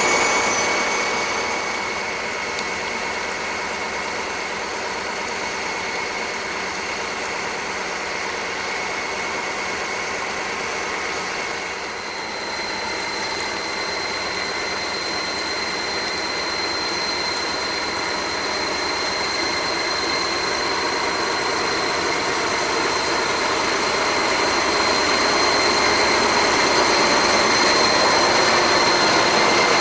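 SNCF BB 67400 diesel locomotives, with SEMT Pielstick V16 engines, running as they haul the train slowly past. The engine sound is steady, grows louder near the end as a locomotive comes alongside, and has a thin high whine over it from about halfway through.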